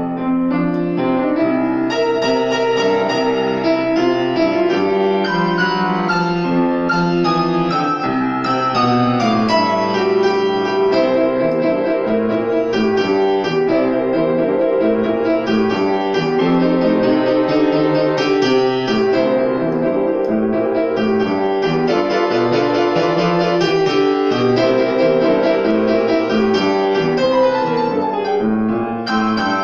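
Grand piano played solo: a continuous flow of notes across the middle and upper range, with no break.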